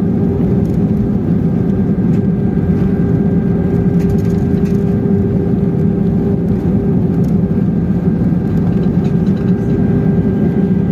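Cabin noise of a jet airliner rolling out on the runway just after touchdown, with its ground spoilers raised: a loud, steady rumble with a constant droning hum.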